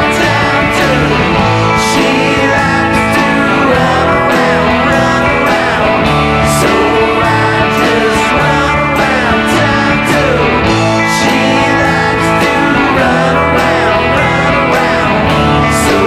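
Post-punk / dream-pop band song: electric guitars over a drum kit with regular cymbal hits, and singing.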